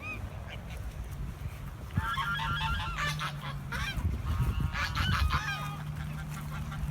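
Geese honking, a flurry of repeated calls in two bursts starting about two seconds in and again a little past the middle, with wind rumbling on the microphone.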